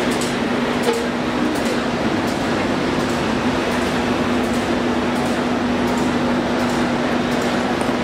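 Shrink-wrapping machine running: the heat shrink tunnel's air blower gives a steady whoosh with a steady hum under it, and a few faint clicks.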